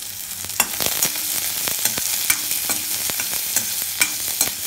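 Chopped onions sizzling in hot oil in a steel wok, stirred with a steel slotted spoon that clicks and scrapes against the pan several times a second.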